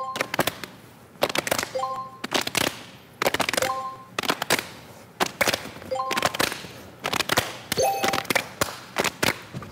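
A group clapping hands and slapping their bodies in a fast, repeating rhythm-game beat, in clusters of sharp slaps about every two seconds. Each cluster opens with a short beep.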